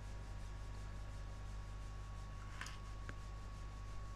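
Quiet room tone: a steady low electrical hum with a thin high tone above it, and two faint ticks a little past halfway.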